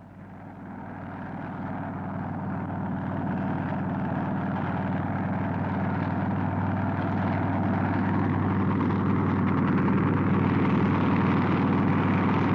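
Helicopter engine and rotor running steadily, growing louder over the first few seconds and then holding at a constant level.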